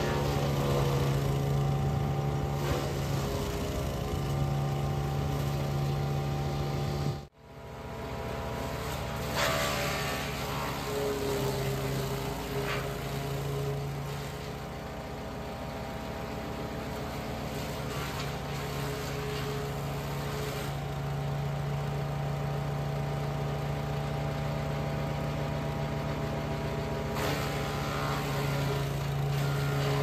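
Small gasoline engine of a wood chipper running steadily at full throttle, with short crackling bursts now and then as branches are fed in and chipped. The sound cuts out for an instant about seven seconds in.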